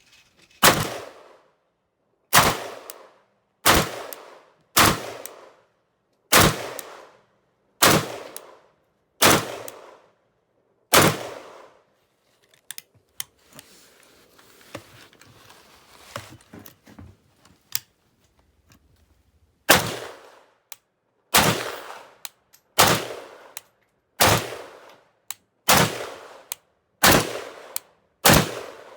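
Single semi-automatic shots from an AK-pattern firearm in 7.62x39, about one every second and a half, each with a short echoing tail. Eight shots, a pause of several seconds with faint handling clicks, then seven more.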